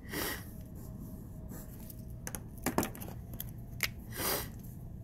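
A pen stroking on paper, then several light sharp clicks and taps as pens are handled on the desk, and another short rub on the paper near the end.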